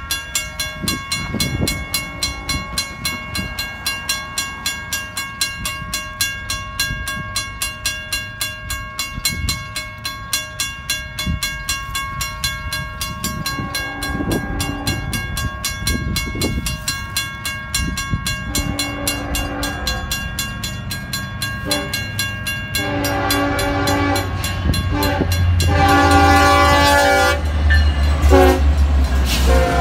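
A Federal Signal mechanical crossing bell rings steadily with rapid even strokes. From about halfway, a Union Pacific diesel locomotive's horn sounds in repeated blasts, each longer and louder than the last. Near the end the locomotives' engine rumble grows as they reach the crossing.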